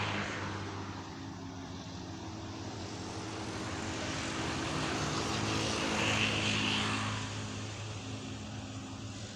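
A steady engine hum under a noisy rush, swelling to its loudest about six seconds in and then easing off.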